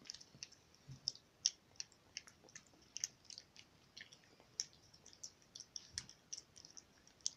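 Mini pig eating purée from a bowl: faint, irregular wet smacking and clicking of its mouth, two or three smacks a second.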